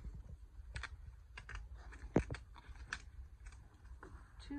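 Irregular crisp clicks and crackles of green corn leaves being unrolled and peeled apart from the whorl by hand, with the loudest snap a little after two seconds in.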